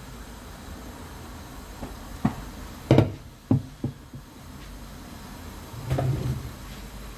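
Kitchen tongs knocking against the frying pan and hob as they are set down: a few short knocks, the loudest about three seconds in, then a duller knock near the end.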